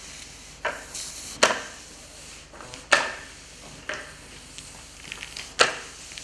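A sponge floor mop knocking and clacking against a hard tiled floor as it is pushed about: about five sharp knocks, irregularly spaced, with a few lighter clicks between them.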